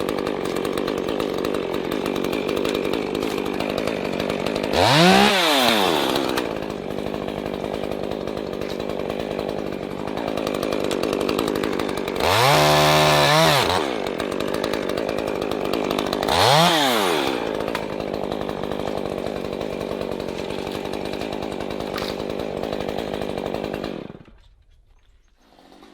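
Two-stroke chainsaw running at idle and revved up three times: short blips about 5 s and 16 s in, and a longer rev held for about a second and a half around 12 s. The engine shuts off suddenly near the end.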